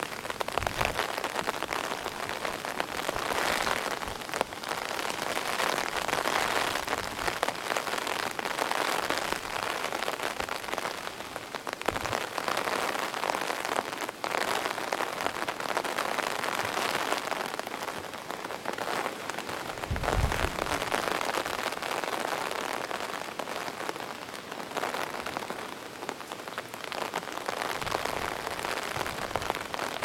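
Heavy typhoon rain falling steadily on a wooden boardwalk and a pond surface, swelling and easing every few seconds with the gusts. Two brief low rumbles come through, about twelve and twenty seconds in.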